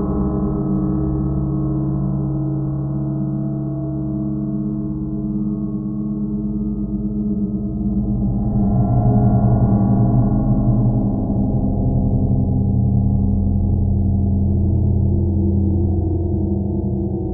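Ambient drone music of sustained low ringing tones. It changes to a new set of tones about eight seconds in, and shifts again around twelve seconds.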